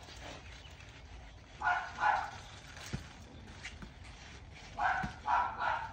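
A dog barking, two barks about two seconds in and three quick barks near the end, with a couple of low thumps in between.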